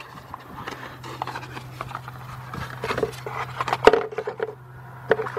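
A new camshaft position sensor's cardboard box and packaging being opened and handled by gloved hands: scattered rustling, scraping and small clicks, with one sharper click a little before four seconds in, over a low steady hum.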